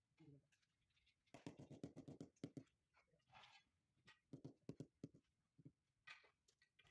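Mallet tapping a marble slab down into its mortar bed to seat and level it: a quick run of about ten taps starting about a second in, then scattered single taps.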